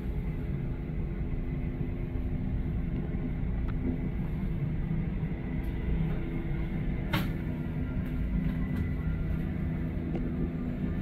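Bell helicopter lifting off and climbing away: a steady low rumble of rotor and turbine engine with a faint steady whine above it. A single sharp click about seven seconds in.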